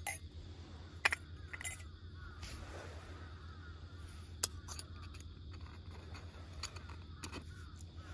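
Scattered light clicks and clinks of a stainless-steel hand coffee grinder being handled and taken apart, about six sharp ones spread through, the loudest about a second in.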